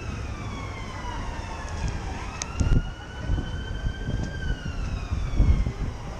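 Emergency vehicle siren wailing in a slow sweep, its pitch falling, rising again about two seconds in, then falling, over steady city traffic rumble with two louder low rumbles about midway and near the end.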